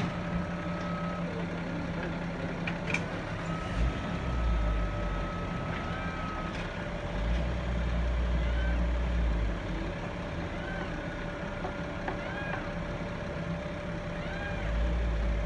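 A fire truck's engine running steadily, with its low rumble swelling a few times. A long steady tone sounds in the first half, and short rising-and-falling calls come in the second half.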